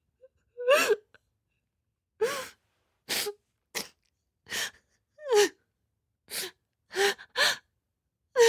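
A person crying in short, gasping sobs, about ten in the space of eight seconds, several with a falling cry of voice, each separated by silence.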